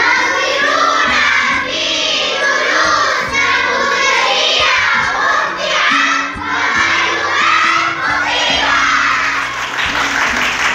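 A crowd of children singing and shouting together over music, loud and lively. Cheering and clapping set in near the end.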